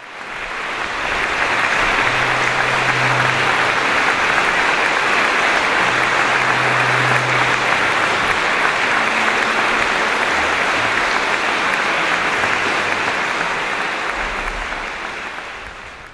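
Audience applauding steadily. The applause swells in over the first second or two and dies away near the end.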